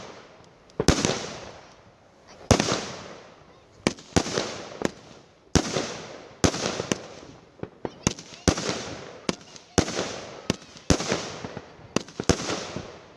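Fireworks going off: an uneven series of sharp bangs, about one or two a second, each followed by a crackling tail that fades away.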